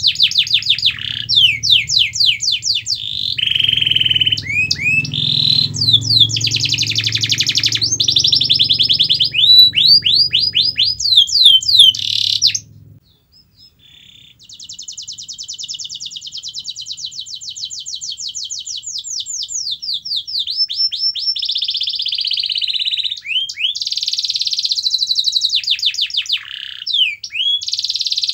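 Domestic canary singing: long rolling trills of rapidly repeated notes and sweeping chirps, with a low hum beneath the first half. The song breaks off for about two seconds near the middle, then resumes with a long trill.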